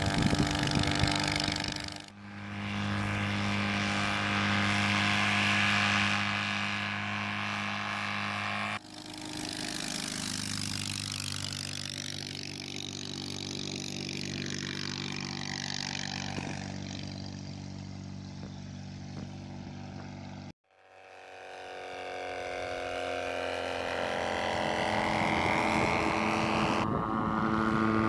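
Small engine of a powered hang glider running, heard in several spliced takes with abrupt cuts between them. In the last stretch its pitch rises steadily as it picks up revs.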